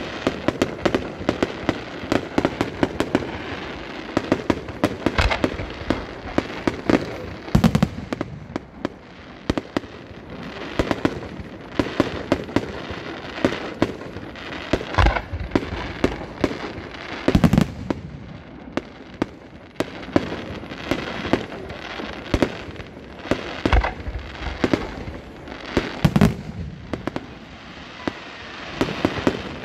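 Fireworks display: aerial shells bursting in quick succession, a continuous stream of bangs and crackles with a louder deep boom every few seconds.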